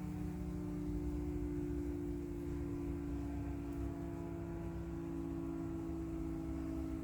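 Lanark's warning siren on the police station roof, sounding for the Carstairs siren test: a steady chord of several held tones that dips slightly in pitch about five seconds in.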